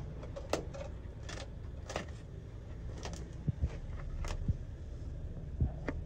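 Scattered scrapes, clicks and a few dull knocks as a gloved hand pulls roots and sludge from the bottom of a brick manhole, over a steady low rumble.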